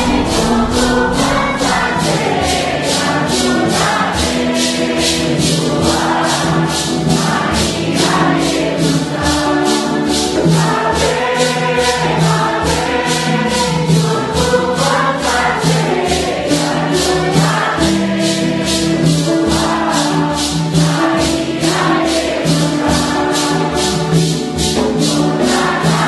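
A group of voices singing a Santo Daime hymn (hino) together, over a maracá shaken in a steady beat of about three strokes a second.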